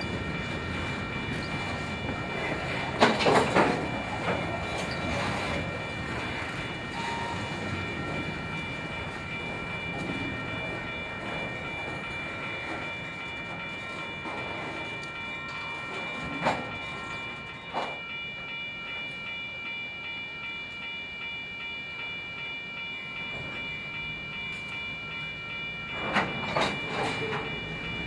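Freight train moving slowly in switching service, a steady rumble with bursts of sharp metallic clanks from the cars and wheels near the start, twice in the middle and near the end. A steady high-pitched ringing tone holds over it.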